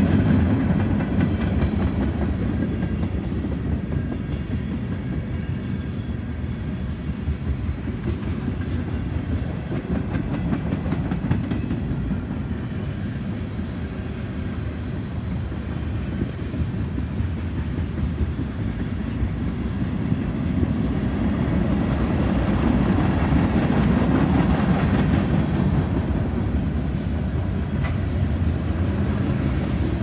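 Manifest freight train's cars rolling past: a steady rumble of steel wheels on rail that swells louder for a few seconds a little past the middle.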